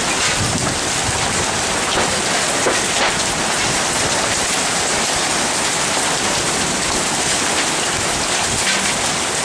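Hailstorm: hail pelting down in a dense, steady clatter, with a few sharper single hits standing out.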